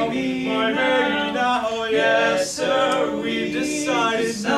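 Four-part male barbershop quartet singing a cappella in close harmony, the chords moving every half second or so, with the voices sliding together near the end.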